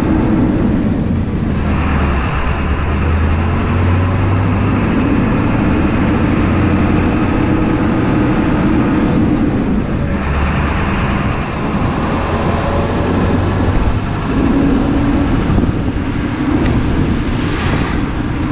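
A vehicle driving, with steady engine and road noise and a strong low hum.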